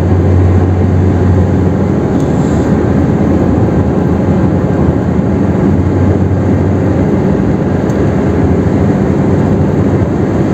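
Steady road noise inside a car cabin at highway speed: tyres on asphalt and the engine, with a low, even hum.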